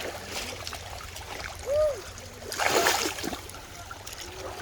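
River water running steadily, with a loud splash of water about two and a half seconds in and a brief voice sound just before it.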